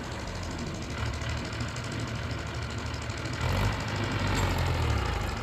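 Old Mahindra 575 DI tractor's diesel engine running steadily, swelling louder about three and a half seconds in. This is the tractor whose gearbox the owner says makes a lot of noise.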